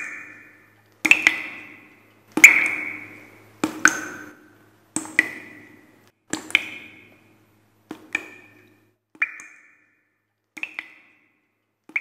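Logo-reveal sound effect: a run of sharp, ringing pings, one about every 1.3 seconds, fading away like an echo.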